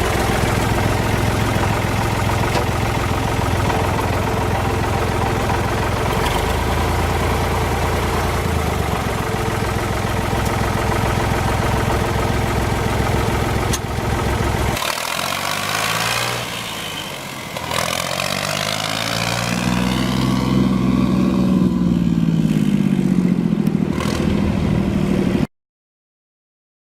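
Allis-Chalmers 5050 tractor's diesel engine running steadily, then from about halfway the engine speed rises and falls repeatedly as it is throttled up and down.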